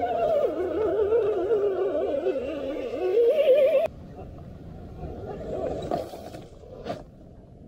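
Electric motor and geartrain of an RC crawler whining under load as it claws through mud, the pitch wobbling quickly up and down as the tyres slip and grip. The whine cuts off suddenly about four seconds in, leaving faint background noise and a single sharp click near the end.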